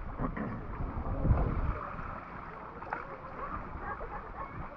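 Shallow seawater lapping and sloshing around a camera held half in the water, with wind buffeting the microphone. A louder low bump comes about a second and a half in.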